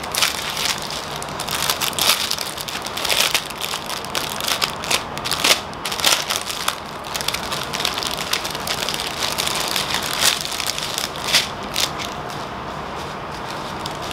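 Clear plastic packaging crinkling and crackling as it is handled, a strip of small bags of round diamond-painting drills being worked out of its plastic sleeve. The crackling is irregular, with sharper crackles now and then, and settles down near the end.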